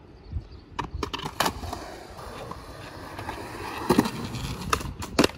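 Skateboard on concrete: the board is dropped with a few clacks, the wheels roll as it is pushed along, then the tail pops and the board clatters onto the concrete twice in a failed flip attempt. The board is fitted with cheap counterfeit trucks, one of them bent, which makes it ride heavy.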